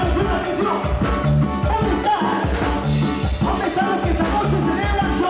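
Upbeat Latin-style dance music with drums and a bass figure that repeats about every second and a half.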